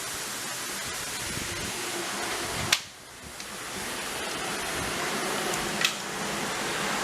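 Steady background hiss broken by two sharp clicks, about a third of the way in and near the end. After the first click the hiss briefly drops away and then builds back up.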